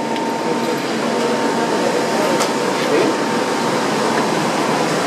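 Steady machinery drone with air noise and a thin constant hum running through it, plus one faint click about two and a half seconds in.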